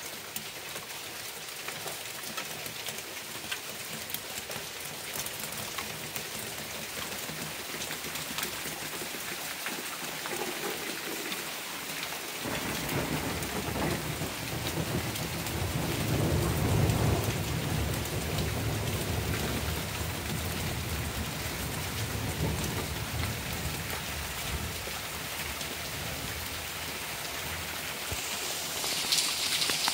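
Steady rain falling, with a long rolling rumble of thunder that breaks in about twelve seconds in, is loudest a few seconds later and slowly dies away. The rain hiss grows louder near the end.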